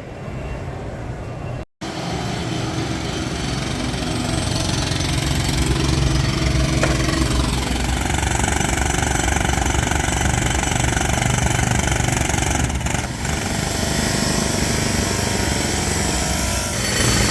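Engine of a heavy vehicle or machine running steadily with a loud low rumble.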